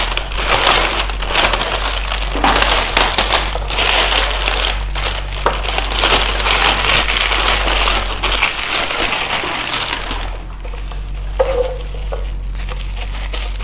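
Thin plastic wrapping crinkling and rustling with many small crackles as it is pulled off a rotating spice carousel of plastic containers. The crinkling thins out after about ten seconds, over a low steady hum.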